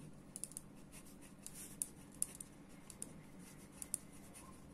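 Pen writing on paper held on a clipboard: faint scratching strokes with many small, sharp ticks as the letters are formed.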